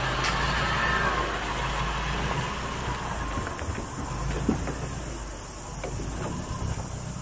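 Mitsubishi L300 Delica 4WD van engine running as the van crawls slowly past and away up a rough track, its sound fading. Scattered small clicks and crunches come in the second half.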